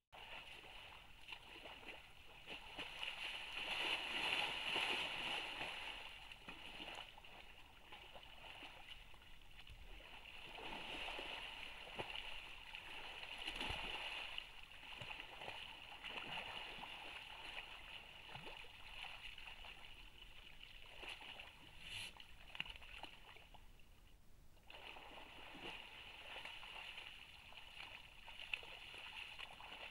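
Elk splashing and sloshing in a shallow muddy wallow as it paws and rolls in the mud, in uneven bursts. A steady high hiss runs underneath.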